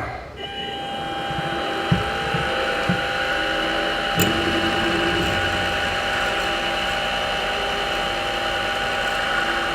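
Milling machine spindle starting up and running steadily with a constant whine as a drill bit is fed into the workpiece to drill out a spotted hole. A few light knocks come around two to four seconds in.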